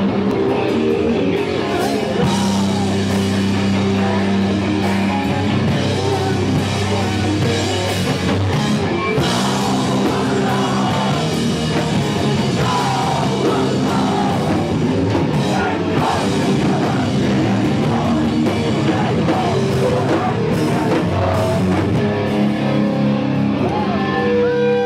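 Loud punk rock: electric guitars and a drum kit with singing, playing steadily throughout.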